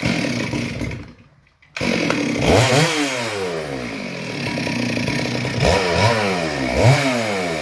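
Two-stroke chainsaw starting: a first burst dies away within a second and a half, then it catches about two seconds in and runs, revved up and down several times.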